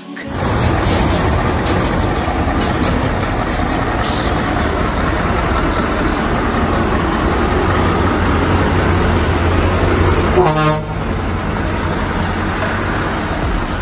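Scania R620 V8 diesel truck engine running loud and close to the microphone, with a short horn toot about ten seconds in.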